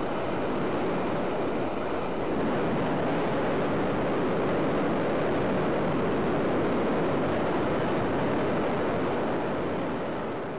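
Steady rush of wind and light-aircraft engine noise at the open door of a high-wing plane in flight, with wind buffeting the microphone. It eases slightly near the end.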